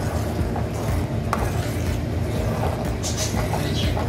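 A ladle stirring rasam in a metal pot to mix in the freshly poured tempering, with a few clinks of the ladle against the pot over a steady low rumble.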